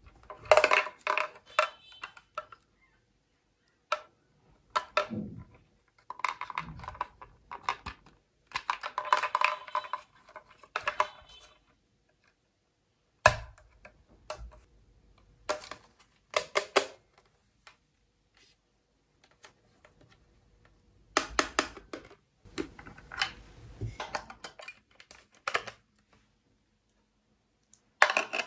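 Small hard plastic toy parts clicking, tapping and rattling in short bursts with pauses, as a pink plastic shower faucet is pushed and snapped onto a plastic toy bathtub. Near the end, AA batteries click into the tub's plastic battery compartment.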